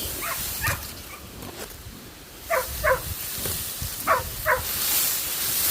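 A dog barking: short barks in pairs, three pairs about a second and a half apart.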